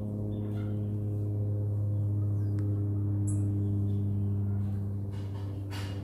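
A steady low drone with several even overtones, holding one pitch throughout. A brief high chirp sounds about halfway through.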